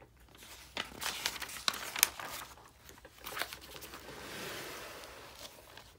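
Paper pages of a spiral-bound book being handled and turned: a run of crinkles and sharp flicks, then a softer sliding rustle near the end.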